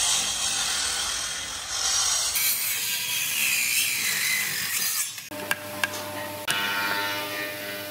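A handheld corded power tool cutting into old railway-sleeper timber, a steady grinding noise whose pitch rises and falls. About five seconds in it gives way to a few sharp knocks of a hammer driving a chisel into a wooden beam.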